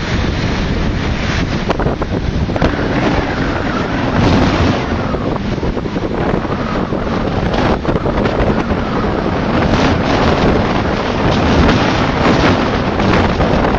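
Strong south-easterly jugo gale, about 8 Beaufort, buffeting the microphone: a loud, steady rush of wind heavy in low rumble, with choppy wind-whipped sea beneath it.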